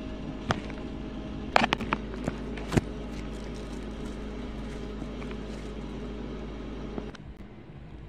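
A steady low mechanical hum, with a few sharp clicks and taps in the first three seconds; the hum cuts off about seven seconds in.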